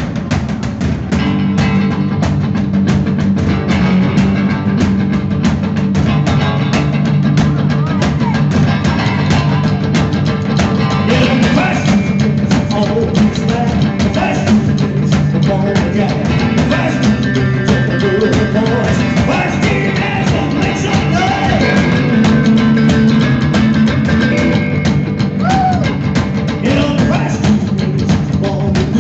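Live rock 'n' roll band playing: upright double bass, drum kit and hollow-body electric guitar.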